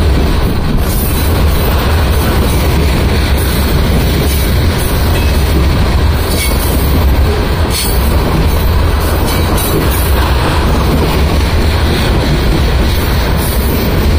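Loaded open-top hopper cars of a rock/aggregate freight train rolling past close by: a steady, loud rumble of steel wheels on rail, broken by irregular sharp clicks and clanks as wheels cross rail joints.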